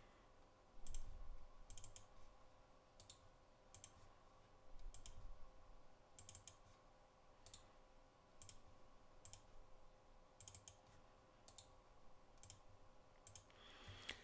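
Faint computer mouse clicks, single and in quick pairs, about one every half second to a second, over a faint steady hum.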